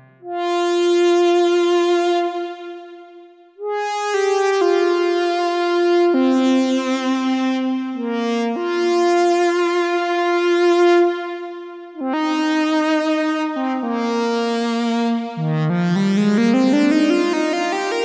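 Sequential Take 5 synthesizer playing a custom lead patch: a single melody line of held notes, bright and with a slight vibrato, with pitch sliding upward near the end.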